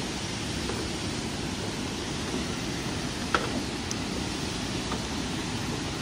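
Steady rushing roar of falling water from Tad Yuang waterfall, with a sharp click a little over three seconds in.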